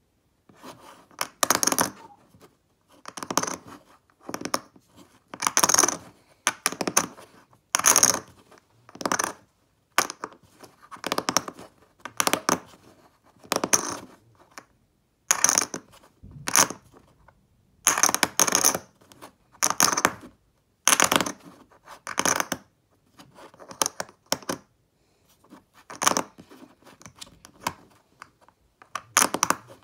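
Stack of clay poker chips being shuffled by hand on a table: a short clatter of chips clicking together, repeated about once a second.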